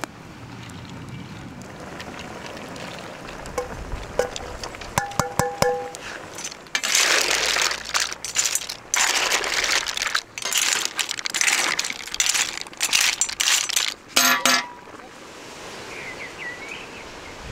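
Mussels in a large cauldron over a wood fire, their shells clattering and sizzling in irregular bursts as they are worked in the steaming pot, with a few metallic clinks early on the way in and one sharp clank near the end. Faint bird chirps follow in the last seconds.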